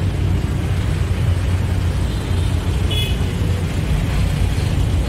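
Steady rumble of heavy city road traffic, cars, vans and motorbikes, with wind buffeting the microphone. A single short vehicle horn toot comes about three seconds in.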